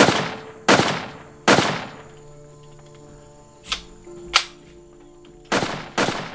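Gunshots: three loud shots in quick succession, each ringing out in a long fading tail, then two fainter sharp cracks, then two more loud shots near the end.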